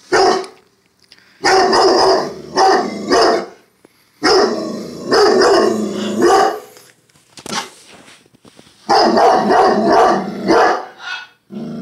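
Doberman alarm-barking at someone outside, in loud volleys of barks separated by short pauses, one volley running about two seconds.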